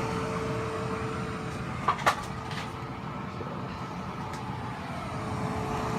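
Electric fan running with a steady whir and hum, with two sharp clicks about two seconds in.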